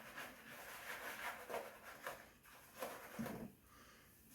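A few faint, short scraping strokes of an AC-Matic 3D-printed razor with a Feather Professional AC blade cutting stubble on a lathered scalp. There is a soft low thump a little after three seconds.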